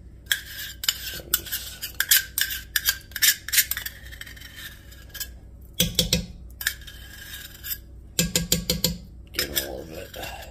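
Metal spoon repeatedly clinking and scraping against a stainless steel measuring cup as thick pesto is scraped out of it.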